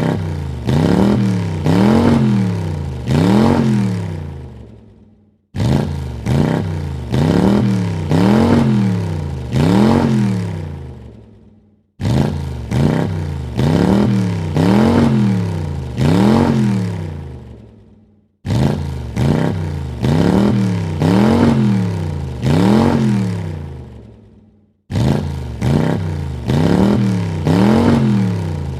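Car engine revved in about four quick blips, each rising and falling in pitch, then dying away. The same sequence repeats about every six and a half seconds, starting abruptly each time.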